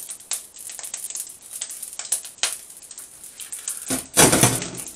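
Chopped corned beef being scraped off a plate into a wok of fried rice: a run of small clicks and scrapes of utensil on plate and pan, with a louder scuffing burst about four seconds in.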